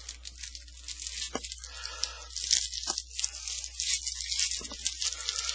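Foil wrapper of a trading-card pack being torn open and crinkled by hand: a run of short, crackly rustles with a few sharp clicks.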